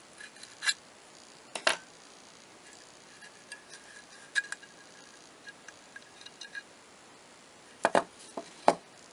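Scattered light metallic clicks and taps as the M16A1 forward assist plunger and its spring are worked out of the upper receiver, a few seconds apart, with the sharpest ones near the end.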